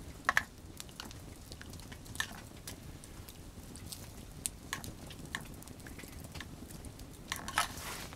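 Campfire of dry dead laurel wood crackling, with scattered sharp pops over a low steady rumble.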